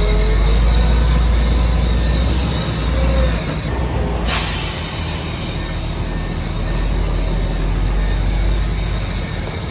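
Heavy diesel earthmoving machinery running with a steady, loud low rumble under a hiss of mechanical noise.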